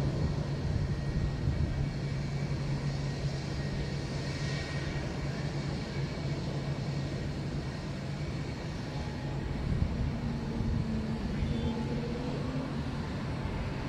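Jet engines of a twin-engine widebody airliner at takeoff power during its takeoff roll: a steady rumble with a low hum.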